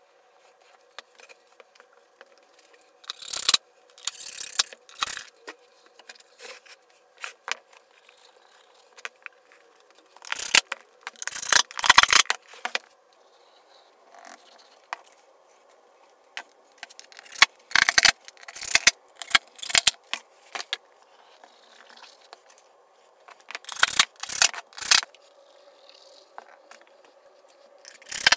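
Wooden parts being handled on a workbench: scattered clusters of knocks, clatter and scrapes as pieces of pine moulding and MDF are picked up, set down and fitted together, with a faint steady hum underneath.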